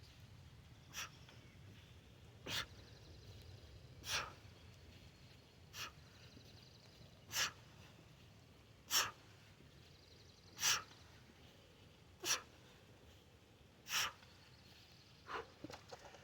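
A lifter's sharp, forceful exhalations, one on each kettlebell rep: nine in an even rhythm about every second and a half, then a few shorter, softer ones near the end.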